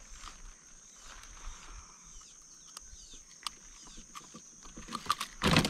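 Small metallic clicks from fishing pliers and a lip grip as a hook is worked out of a traíra's mouth, with one loud rough handling burst near the end, over a steady faint high hiss.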